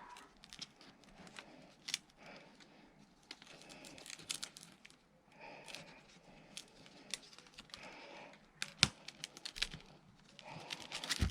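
Rope being worked and pulled tight by hand at a magnet's eyelet: irregular rustling of the rope with scattered small clicks and knocks, a sharper knock about nine seconds in and another at the end.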